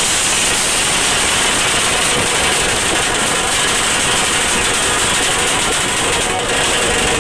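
Benjo band playing at close range. The drums and cymbals blur into a steady, distorted din that overloads the microphone, so no single beat stands out.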